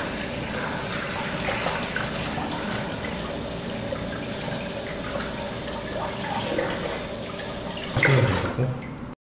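Kitchen tap running steadily into the sink, with a brief louder sound about eight seconds in; the sound cuts off abruptly just before the end.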